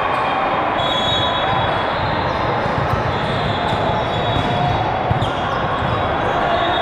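Busy indoor sports hall: balls bouncing and thudding on the court over a steady loud din of crowd and play, with brief high shoe squeaks.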